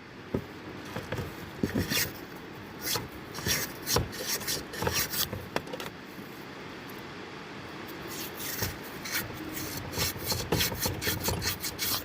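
Hand work on small parts: irregular scraping and rubbing, broken by many sharp clicks and taps, most frequent near the end.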